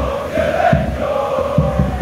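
Large crowd of football supporters chanting in unison, many male voices holding long sung notes. Rapid low thumps run under the chant, drop out for a moment and come back near the end.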